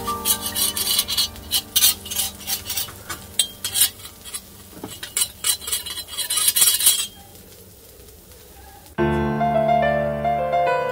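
Pepper mill grinding black pepper over the crepe on the griddle, a run of rapid irregular clicks lasting about seven seconds. After a short lull, piano music comes in near the end.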